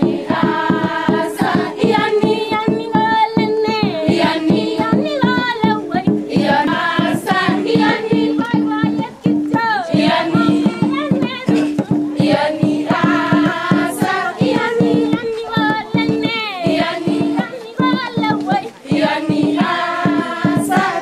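A group of schoolgirls singing a Kalenjin traditional song together, over a quick, steady rhythmic beat.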